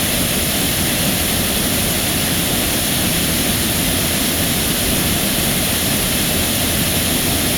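Waterfall rushing: a loud, steady wash of falling water with no changes.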